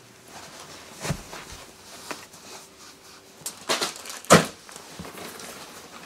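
Scattered knocks and thumps of someone pulling on and stepping in lace-up leather boots on a floor. There is one knock about a second in, a few more near the middle, and the loudest sharp thump about four and a half seconds in.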